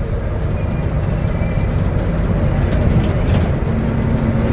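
Steady low rumble of engine and road noise from inside a moving bus, with a few small rattles.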